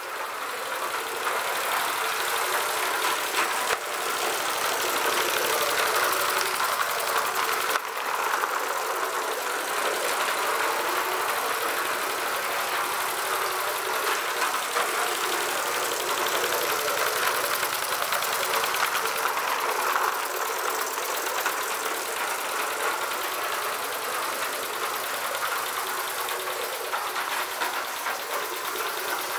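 Small Mamod live-steam model locomotive running on a loop of track: a steady hiss of steam and burner with the running noise of the wheels on the rails, and a couple of brief clicks in the first eight seconds.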